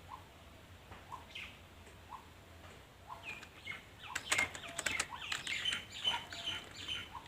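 Computer keyboard keys being pressed, a few scattered taps at first and then a quicker run of clicks from about halfway through, with faint bird chirps behind them.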